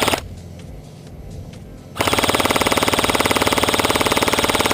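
Airsoft electric gun firing on full auto: a short burst right at the start, then a long, fast, even burst of about three seconds starting about two seconds in.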